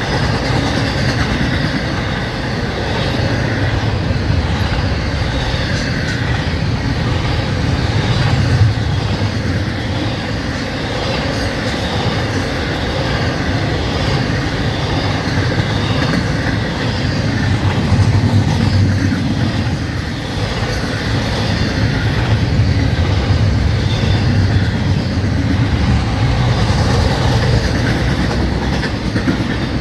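Florida East Coast Railway freight train cars rolling past at speed: a loud, steady rumble of steel wheels on the rails that goes on without a break.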